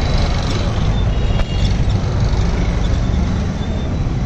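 Busy street traffic, with motor scooters and cars passing close by, heard as a steady low rumble. A single short click comes about a second and a half in.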